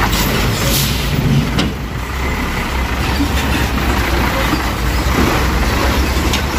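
Heavy diesel truck passing close by, its engine running steadily under a wash of road noise, with a short high hiss about a second in.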